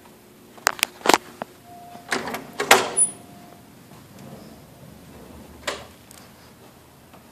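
Front door of an apartment being unlocked and opened: a few sharp clicks about a second in, then a louder rattle of latch and door around two to three seconds in, and one more knock near the end.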